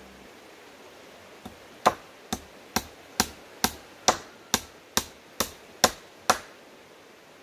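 A hammer striking wood: about a dozen sharp, evenly spaced blows, roughly two a second, beginning about a second and a half in and stopping a little after six seconds, the sound of nailing a board onto a wooden post.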